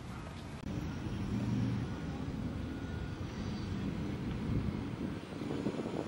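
Steady low rumble of a fire truck's diesel engine idling.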